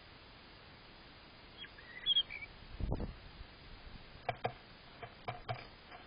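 Garden birds at a feeder: a few short, high chirps about two seconds in, a low thump about a second later, then a handful of sharp taps near the end.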